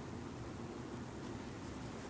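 Faint, steady background hiss with no distinct sounds in it.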